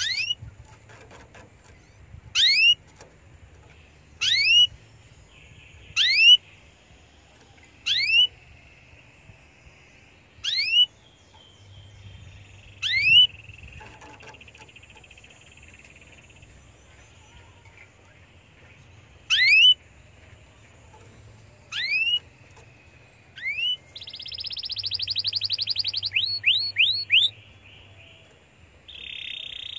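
Domestic canary giving a string of short, steeply rising whistled call notes, one every two seconds or so with a longer pause in the middle. Near the end it breaks into a rapid trill with a few quick rising notes.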